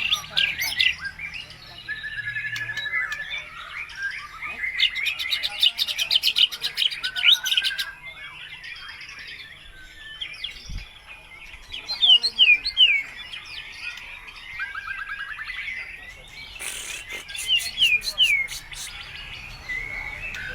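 White-rumped shama singing a long, varied song: sharp down-slurred whistles and warbles, broken twice by fast rattling trills. The song is studded with imitations of other birds' calls.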